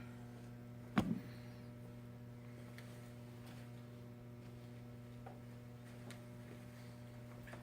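Steady electrical hum, with a single knock about a second in as something is set down on the workbench, and a few faint taps afterwards.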